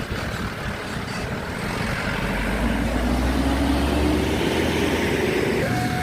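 Road traffic with a heavy diesel vehicle's engine pulling away from about two seconds in, its drone growing louder and its pitch rising. A steady horn tone starts right at the end.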